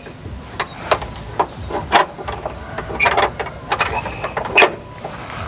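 Irregular clicks, taps and small knocks of a hand working at the driver's seat and rubber floor mat in the cab of an old Suzuki Carry van. About a dozen sharp clicks, unevenly spaced, with no engine running.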